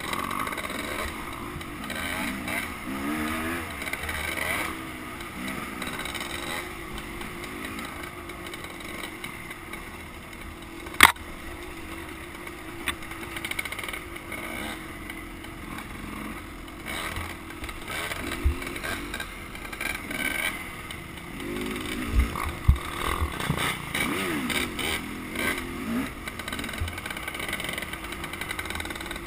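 Dirt bike engine running and revving up and down as the bike is ridden over rough ground, heard from a camera mounted on the bike. A single sharp knock comes about eleven seconds in, and a few dull thumps come in the second half.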